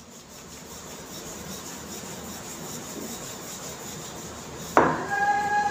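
A rolling pin rubbing steadily back and forth as it gently rolls out a stuffed onion paratha on a rolling board. About five seconds in, a loud, steady horn-like tone starts suddenly.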